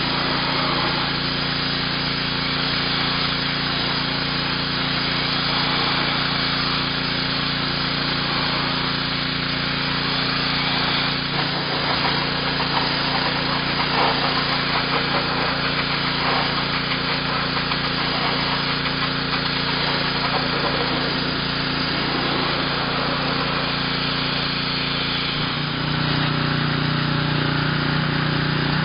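Ryobi gas pressure washer engine running steadily while the high-pressure water jet hisses against the wooden fence boards. About 25 seconds in, the engine note shifts and grows louder.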